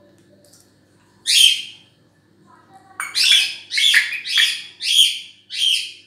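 African grey parrot giving short, high-pitched calls: one on its own, then a quick run of five more about half a second apart.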